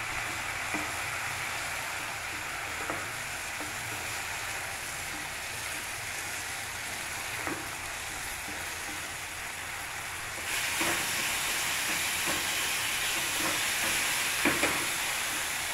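Mint leaves and dried red chillies sizzling as they fry in oil in a nonstick pan, with a few light spatula taps. The sizzling gets louder about ten seconds in.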